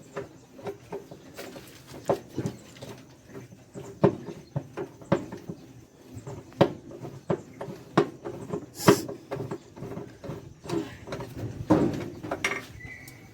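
Irregular metallic clicks and knocks, one or two a second, from a 13 mm wrench working loose the bolts on a washing machine's tub and transmission.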